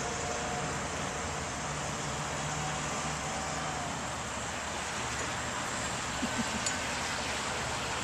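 Steady motor drone from a cabin boat's twin outboard engines running past at speed, blended with highway traffic noise. A few faint ticks come about six seconds in.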